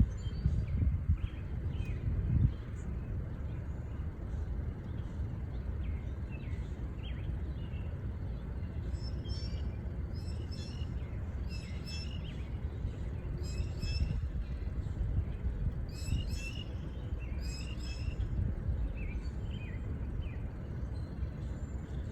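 Small birds chirping in clusters of quick high notes, thickest in the middle, over a steady low rumble; a few louder low knocks in the first couple of seconds.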